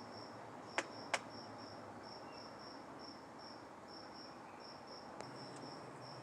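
Cricket chirping, a high chirp repeated evenly over and over. Two sharp clicks sound about a second in.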